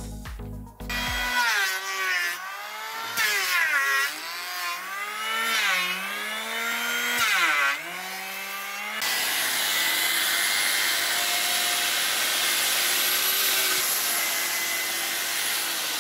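Handheld electric planer shaving a wooden table rail: its motor pitch dips each time the blades bite and rises again between passes, several times. About nine seconds in it gives way to a steadier, noisier sound of an angle grinder with a sanding disc smoothing the wooden frame.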